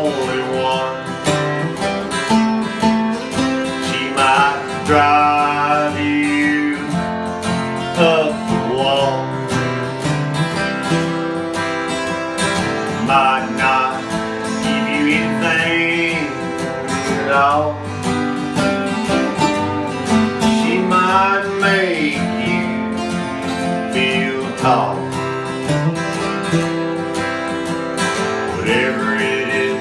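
Two acoustic guitars playing a country song: strummed chords with a melody line above them that slides and wavers in pitch.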